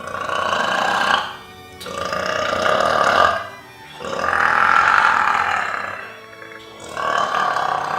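A person belching loudly and at length, four long burps in a row with short breaks between them. The longest, in the middle, lasts about two seconds.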